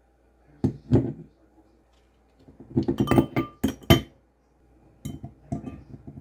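Fingers tapping an empty stemmed wine glass: two sharp clinks about a second in, then a quick run of clinks with a brief glassy ring. Near the end, small round items drop into the glass and tick against it.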